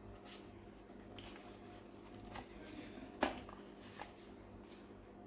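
Faint rustling and handling noises of a toy and its packaging, with one sharper knock a little past three seconds in, over a steady low hum.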